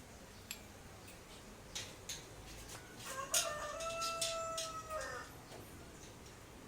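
A rooster crowing once, a single call of about two seconds in the middle, over scattered light clicks and taps.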